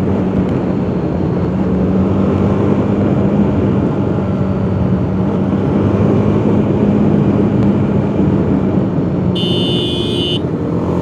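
Motorcycle engine running at a steady cruising speed under loud wind rush on a helmet-mounted mic. About nine and a half seconds in, a high-pitched beep lasts about a second.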